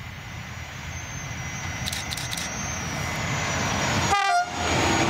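Electric locomotive hauling a passenger train on approach, its running noise growing steadily louder. A brief horn blast sounds about four seconds in.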